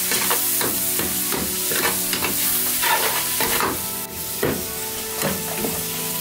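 Snake innards and skin stir-frying in hot oil: a steady sizzle with repeated scrapes and tosses of a spatula in the pan.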